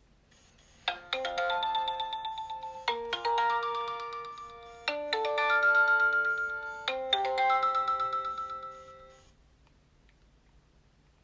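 Nokia 6230i ringtone: a chiming electronic melody with several notes at once, in four phrases about two seconds apart, that then dies away.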